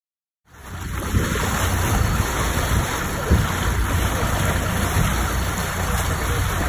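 Water rushing and splashing along a boat's hull around a bluefin tuna held boatside, with wind buffeting the microphone; it starts abruptly about half a second in.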